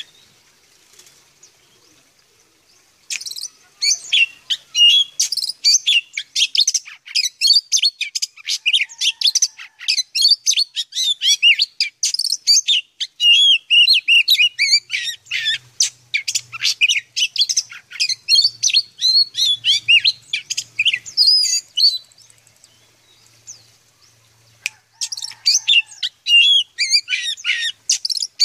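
Sumatran oriental magpie-robin (kacer) singing a rapid, varied song of high whistles and chirps, starting about three seconds in. It breaks off for a couple of seconds near the end, then resumes.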